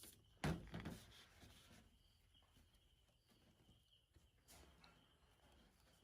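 Near silence with a faint steady high tone, broken by a brief rustling knock about half a second in and faint rustling after it.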